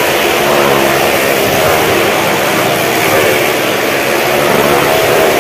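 Stunt motorcycle engines running hard as the bikes circle the wooden wall of a well-of-death drum: a loud, steady engine drone that doesn't let up.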